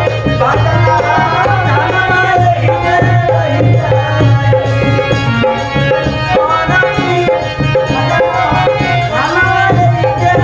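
Instrumental break in a Bhojpuri devotional folk song: hand drums and rattling percussion beat a busy, steady rhythm under a melody line and a steady low bass.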